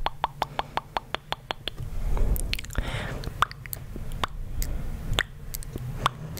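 Close-mic'd ASMR mouth sounds: a quick run of wet clicks, about five a second, then a breathy rush near the middle and a few more scattered clicks.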